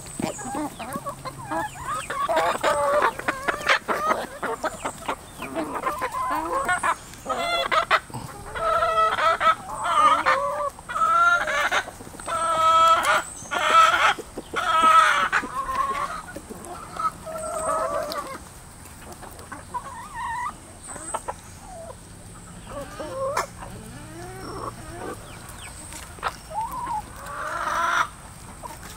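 A flock of backyard chickens clucking. Many short calls overlap through the first half, then they come fewer and further apart.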